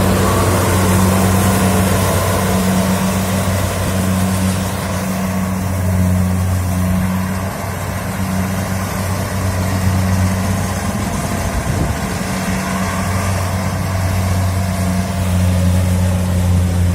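Kubota DC70 rice combine harvester's diesel engine running steadily with a deep hum, easing off a little partway through before picking up again.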